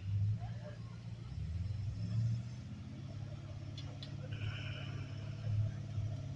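Engine of a modified 1970s Chevy off-road truck running at low revs while it crawls, swelling briefly a few times.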